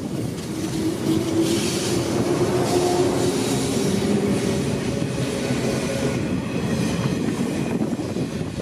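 A 485-series electric train moving through the station: a steady rumble of wheels on rails with a few steady tones over it.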